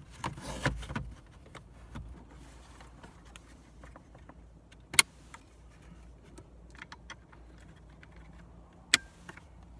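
Plastic dashboard parts and wiring-harness connectors being handled and plugged back in, with light rustling and small ticks and two sharp clicks about four seconds apart.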